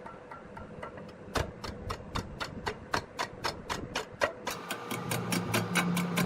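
Large wood lathe turning with a regular knock, about three a second, quickening to about four a second near the end as a low motor hum comes in.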